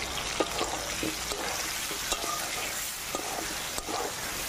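Potato chunks sizzling in hot mustard oil in a metal kadai while a metal spatula stirs them, with scraping and short clinks of the spatula against the pan.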